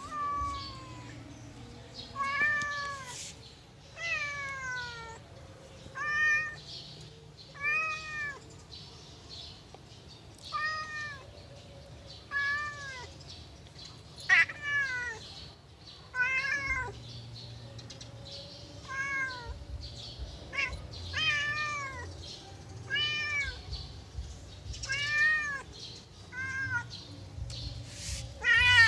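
Domestic cat meowing over and over: short meows that rise and fall in pitch, one about every second or two.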